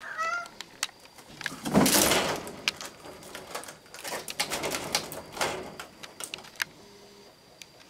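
Kitten scrabbling up a cloth curtain and a bamboo blind: irregular bursts of rustling and claw scratching, the loudest about two seconds in, with scattered clicks and rattles from the blind's slats. A short high call falling in pitch opens it.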